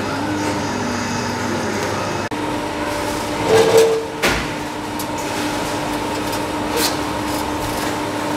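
A metal café chair scraping across a tiled floor with a brief squeal about three and a half seconds in, then a sharp knock as it is set down, over a steady background hum.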